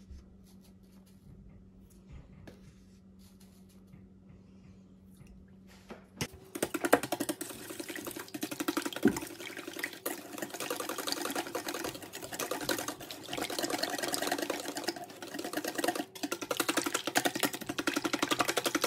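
A wire whisk beating raw eggs in a stainless steel bowl: a fast, continuous clatter of wires against the metal that starts about six seconds in, after a few seconds of faint steady hum.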